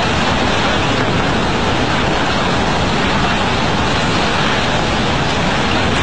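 Tsunami floodwater surging through, a loud steady rushing noise of churning water.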